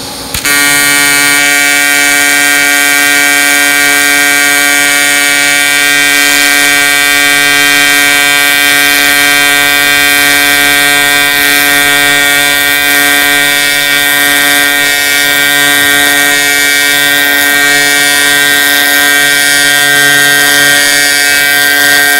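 TIG welding arc on 1/8-inch aluminum diamond plate. The AC arc strikes about half a second in, then buzzes loudly and steadily at one constant pitch while a seam is welded.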